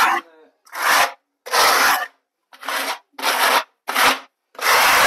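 A large spatula scraping wet mortar across a wall in quick repeated strokes, about seven in all, each roughly half a second long with short pauses between.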